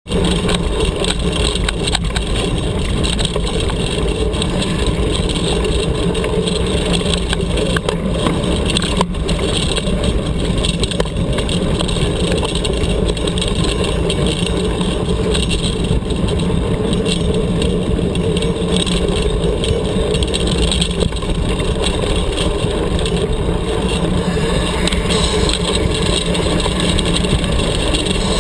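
Steady rush of wind and tyre rumble on a bike-mounted camera's microphone as a mountain bike rolls along a dirt and gravel trail.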